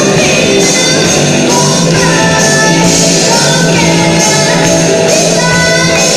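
Live band playing loudly: drums, bass guitar, electric guitars and organ, with a woman singing lead into a microphone.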